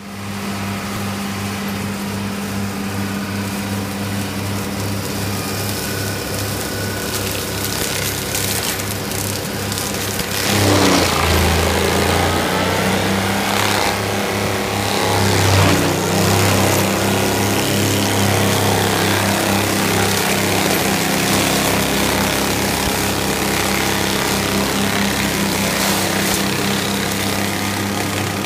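160-hp Valtra tractor's engine running at working speed, driving a FAE UML/DT/HD forestry mulcher whose fixed-tooth rotor shreds brush and small trees. About ten seconds in, the load rises as the rotor bites into wood: the engine note drops and crackling and clattering join in, then it settles back to a steady run.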